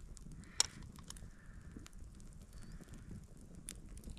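Small campfire crackling faintly with scattered small pops, one sharper click about half a second in, and a soft hiss for about two seconds in the middle.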